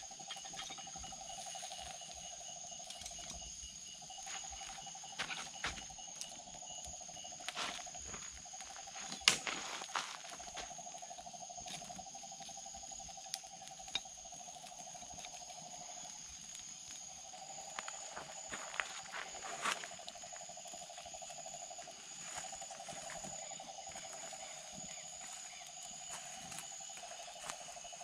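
Night insects calling steadily: a trilling chorus that comes in stretches of a few seconds over a higher continuous buzz. A few sharp clicks are scattered through, the loudest about nine seconds in.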